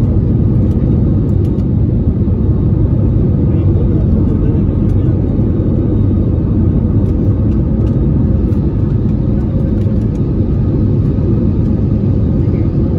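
Jet airliner cabin noise during the climb just after takeoff: the under-wing jet engines at climb thrust and the airflow make a loud, steady, low rumble with a faint hum on top.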